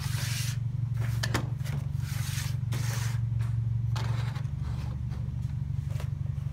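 Hands handling a plastic pop-up pirate barrel toy: several short plastic scrapes and a few clicks as the plastic swords are pulled out of the barrel and the pirate figure is pressed down. A steady low hum runs underneath.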